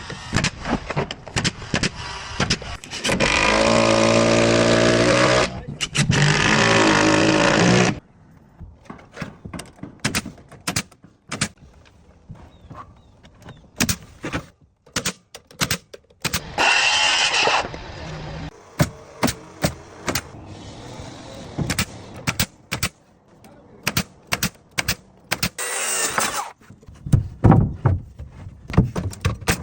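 Wood-framing work. A power saw runs loudly twice, a few seconds each, near the start. A long, irregular run of sharp knocks and bangs follows, typical of nailing lumber, with two more brief bursts of a power tool partway through.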